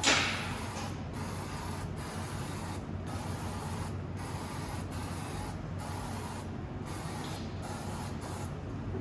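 A steady hissing spray that starts suddenly and is cut by brief pauses about once a second, over a low steady hum.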